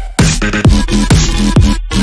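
Background electronic dance music with a heavy, steady bass-drum beat, about two hits a second.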